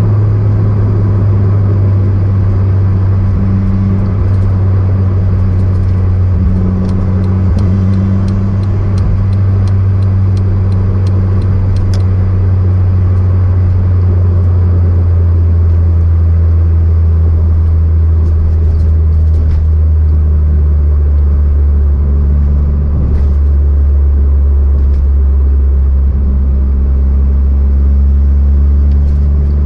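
Turbocharged car engine running steadily under way, a deep even drone. A run of light, evenly spaced clicks sounds through the first half.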